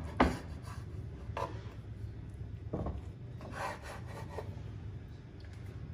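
Knife sawing through a soft white-bread sandwich and scraping on a bamboo cutting board, a handful of short rasping strokes.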